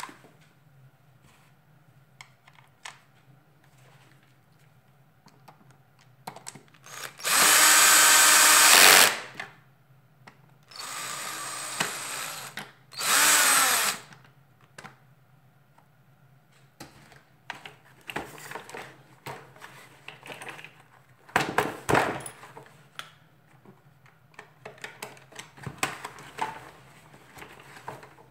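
Electric screwdriver driving screws into a vacuum cleaner's housing: three short runs of the motor, about two seconds, two seconds and one second long, the middle one quieter, the last winding down in pitch as it stops. Light clicks and knocks of parts being handled follow.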